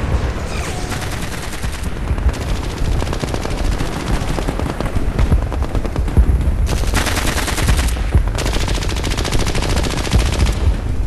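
Battle sounds of gunfire: rapid, continuous machine-gun and rifle fire over a low rumble, growing heavier for a second or so about seven seconds in.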